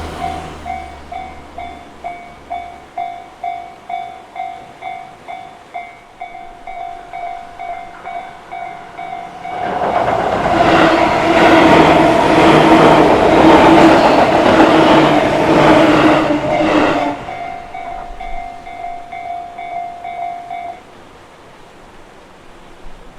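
Railway level-crossing warning bell ringing at about two strokes a second. A Tobu Isezaki Line train passes through the crossing from about ten seconds in, loud, with a rhythmic clatter of wheels. The bell stops a few seconds after the train has gone.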